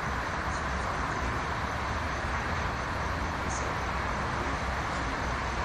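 Steady wash of distant road traffic: continuous tyre and engine noise with a low rumble underneath, unchanging throughout.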